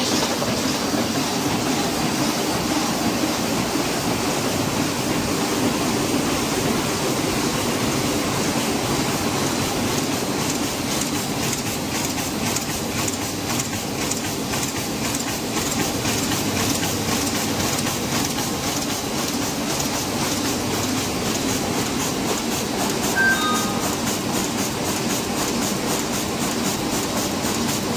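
Sheet-fed offset printing press running, a fast, steady rhythmic clatter from its sheet feeder and rollers.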